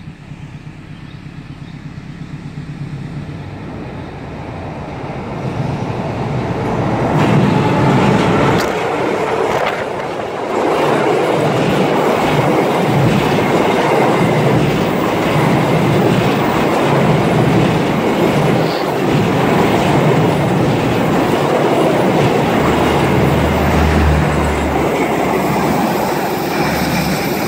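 Argo Wilis passenger train passing over the railway bridge. It grows louder for the first several seconds as it approaches, then the coaches pass close by with a steady rhythmic clickety-clack of wheels on the rails.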